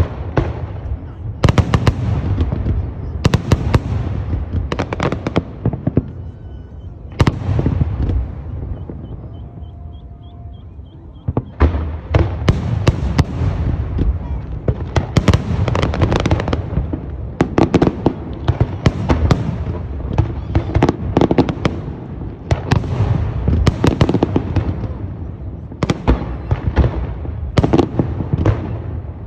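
Fireworks show: repeated booms and sharp cracks of aerial shells bursting, each with a rolling echo, easing for a few seconds near the middle and then coming in dense rapid volleys.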